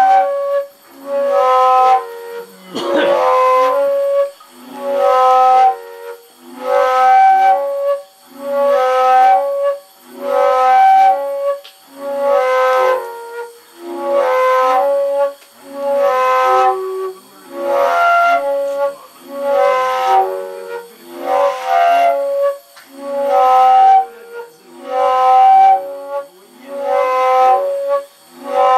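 Flute music: a short phrase of several held notes, repeated about every two seconds with a brief dip between phrases. A single knock sounds about three seconds in.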